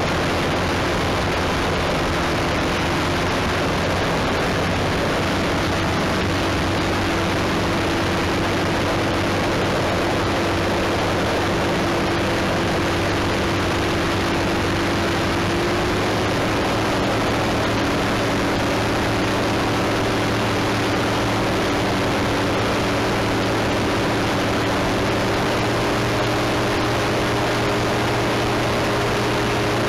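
Propeller-driven aircraft engine droning steadily under a constant rushing hiss. Its pitch steps up slightly about halfway through and again near the end.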